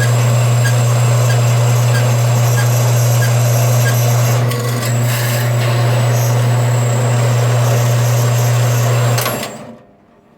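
Band saw running through thick cast brass: a steady motor hum under the rasp of the blade, with a light tick about twice a second. About nine seconds in the saw is switched off and quickly winds down.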